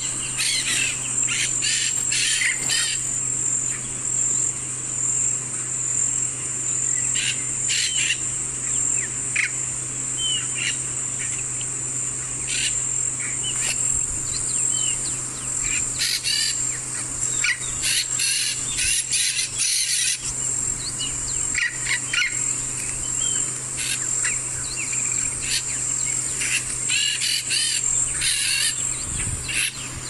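A steady high-pitched insect drone under frequent short bird calls and chirps that come in scattered bursts.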